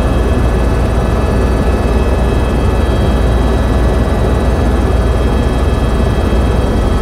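Helicopter in flight heard from inside the cabin: a loud, steady rotor and engine drone with a deep rumble and a thin, steady high whine above it.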